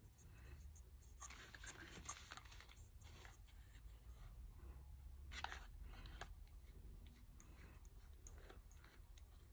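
Near silence, with faint, scattered rustles and light taps of packaging being handled.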